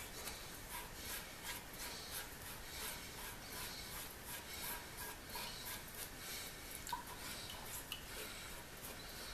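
Bare hand rubbing the wet steel blade of a pair of freshly derusted blacksmith's shears, scrubbing off residue in quick repeated strokes, about two a second. The sound is faint.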